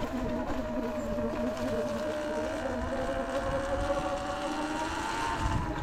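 2023 Sur-Ron Light Bee X electric dirt bike's motor whining steadily while riding, its pitch dipping slightly and rising again near the end, over a low rumble.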